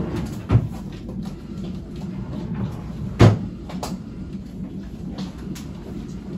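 Two sharp thumps, one about half a second in and a louder one about three seconds in, with a lighter knock just after it, over a steady low hum.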